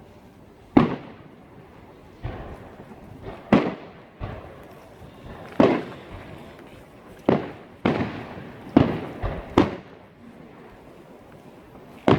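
Fireworks going off: about ten sharp bangs at irregular intervals, each trailing a short echo, with the loudest ones clustered in the second half.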